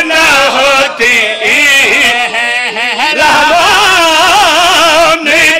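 A man's solo voice chanting a drawn-out, heavily ornamented sung phrase in devotional recitation style, its pitch wavering and bending, with brief breaks for breath.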